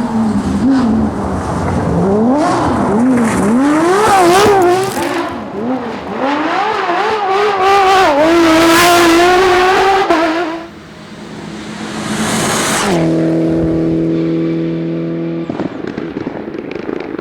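Rally car engine revving hard and climbing through quick gear changes as the car passes at speed, with some tyre squeal. After a short lull, a steady, held engine note for a couple of seconds.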